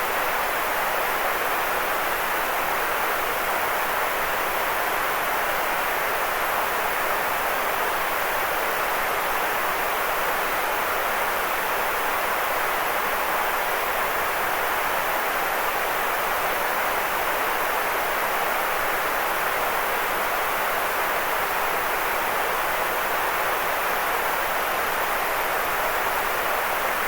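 Steady, unchanging white noise: an even hiss that sits mostly in the middle of the range, without a bright top or a deep rumble.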